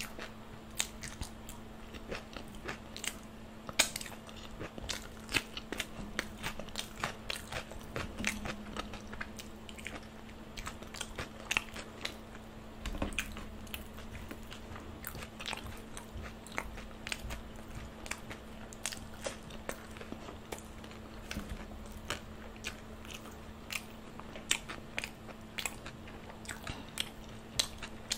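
Close-miked eating: crisp golgappa puris and fried momos being bitten and chewed, with many irregular sharp crunches.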